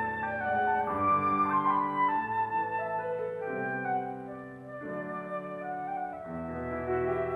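Concert flute playing a slow melody of held notes over piano accompaniment.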